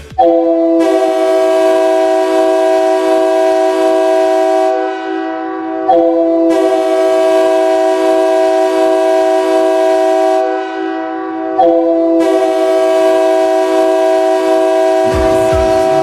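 Ice hockey goal horn blowing a chord of several steady tones in three long blasts, each about five to six seconds, sagging slightly before the next blast starts.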